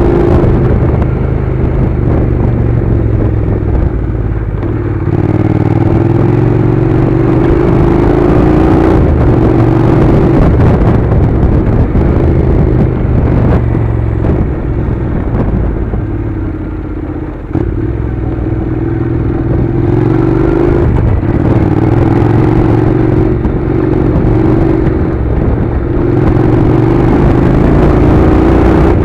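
Honda NC700's 670 cc parallel-twin engine running under way on the motorcycle, its pitch rising and falling as the throttle opens and closes. It eases off briefly a little past halfway.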